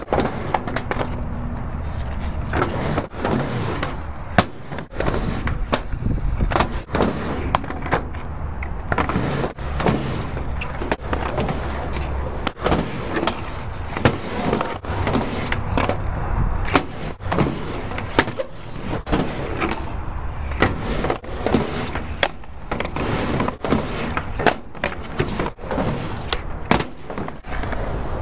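Skateboard rolling on asphalt and a quarter pipe, with many sharp clacks and thuds of the board hitting the ramp and the ground.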